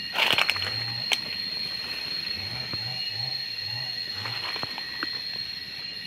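Coffee plant leaves rustling and crackling as a hand brushes through the branches, over a steady high-pitched drone. There is a low hoot about a second in, and a short run of four low hooting notes near the middle.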